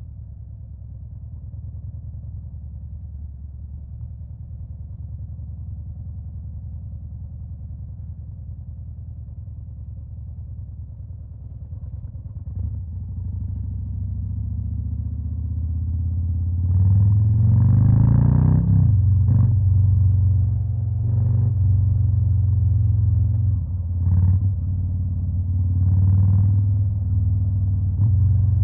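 Stage 2-tuned 2021 Harley-Davidson Fat Boy's Milwaukee-Eight V-twin idling steadily and growing louder. About halfway through, the throttle is opened in one rising rev, followed by four short throttle blips a couple of seconds apart near the end.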